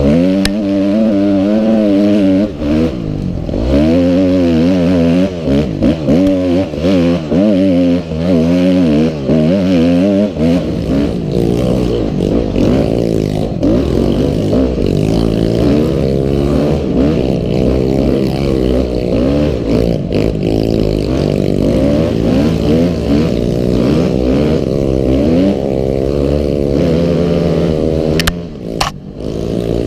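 A Honda CRF250's single-cylinder four-stroke engine revving up and down continuously as the bike is ridden hard over rough ground. The throttle shuts off briefly near the end.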